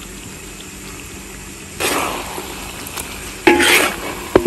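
Metal spatula stirring chicken in thick soy-sauce gravy in a large steel wok, over a faint steady sizzle. It scrapes the pan about two seconds in and clanks against the wok more loudly near the end.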